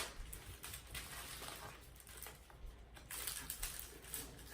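Faint, irregular light clicks and rustling of packaging being cut open with a knife around a boxed exhaust muffler, a little busier about three seconds in.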